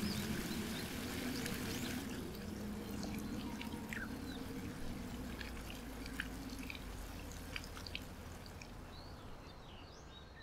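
Ambient soundscape of scattered short high chirps and ticks over a low drone. The drone drops away about two seconds in, and the whole sound fades out slowly toward the end.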